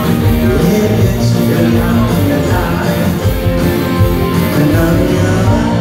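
Rock band playing live in a concert hall: guitars, bass and drums at full volume, heard from the audience seats.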